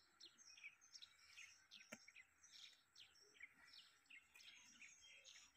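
Faint, rapid chirping of small birds, many short calls scattered throughout, with a single sharp click about two seconds in.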